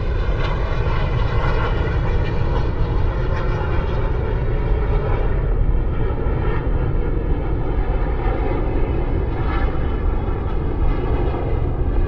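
Military jet aircraft flying over: a steady, loud jet-engine roar with a deep rumble underneath and a hissing upper edge that thins a little midway.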